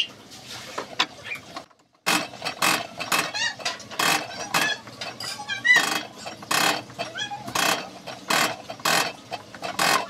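Diesel injector nozzle from a Komatsu 3D84 engine being tested on a hand-lever nozzle tester. About two seconds in, the lever is pumped repeatedly, and each stroke gives a short hissing spray burst, about three a second.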